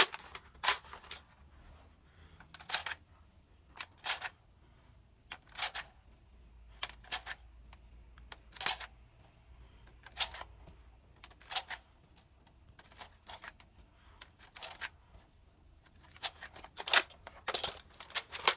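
Adventure Force Liberator foam-ball toy shotgun being cycled and fired over and over: sharp plastic clacks and snaps, singly or in pairs every second or two, with a quick flurry near the end.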